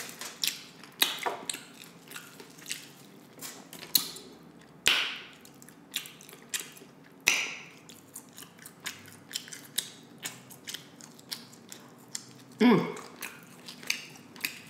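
Close-miked chewing and biting of crispy fried chicken wings: many short crackling crunches with a few louder bites about five and seven seconds in.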